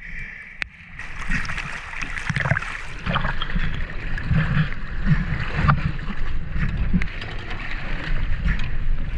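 Choppy seawater splashing and gurgling around a diver at the surface as he reaches a boat's stern and climbs aboard, over a low rumble of waves and wind, with a few sharp knocks.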